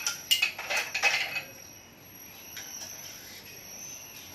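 Light metallic clicks and clinks from the clamps and tools of a manual racket-stringing machine being handled. A quick cluster comes in the first second and a half, with a few fainter ticks later.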